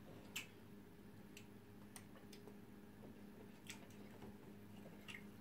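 Near silence: a handful of faint clicks of metal spoons against a plate of rice, the clearest about half a second in, over a low steady room hum.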